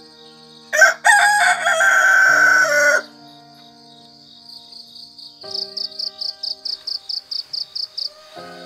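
A rooster crows once, a single crow of about two seconds starting just under a second in, the loudest sound. Crickets chirp in quick high pulses, about five a second, around it.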